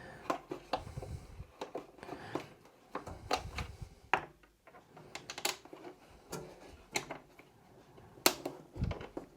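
Irregular light clicks and taps of a small Allen key on an extension bar working two bolts loose deep inside a Bambu Lab AMS 2 Pro's plastic housing, with a sharper knock a little past eight seconds in.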